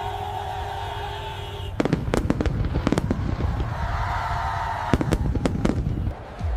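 Held steady tones for the first couple of seconds, then a rapid string of fireworks bangs and crackles over a low rumble that runs on for about four seconds.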